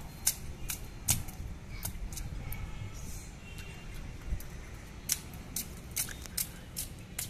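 Bare feet slapping and splashing on a wet concrete floor as a small child jumps in shallow puddles: a string of sharp, irregular smacks, about one or two a second, over a low rumble.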